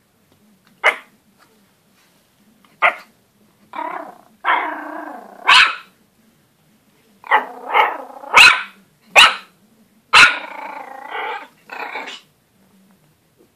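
Pomeranian puppy yapping in short, sharp, high barks, several in quick succession around the middle. A few longer, drawn-out growly barks come between them, about four seconds in and again near the end.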